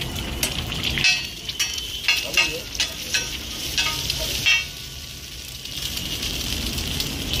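Egg sizzling on a large flat griddle while a metal spatula repeatedly clanks and scrapes against the griddle, chopping and stirring it. The strikes come in a quick run of about nine from about one second in to about four and a half seconds, and the sizzle then carries on alone, a little quieter.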